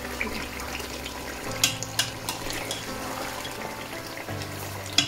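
Thick lamb curry bubbling and sizzling in an aluminium pot on the hob, with a few light clinks of a metal ladle against the pot.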